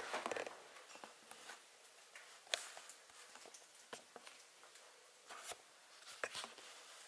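Faint, scattered ticks and scratches over quiet room hiss, from budgerigars moving about in their cage while bathing.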